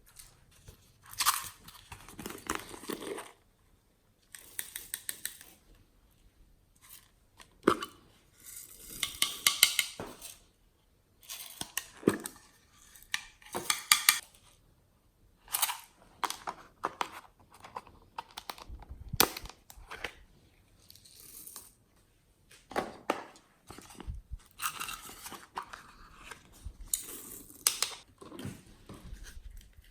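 Hands working and mixing a glossy slime: irregular bursts of sound, each about a second long, with short pauses between.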